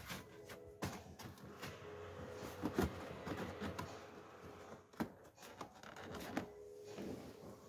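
Hands working behind a car's plastic dashboard trim: scattered clicks and knocks of plastic and wiring, with rustling.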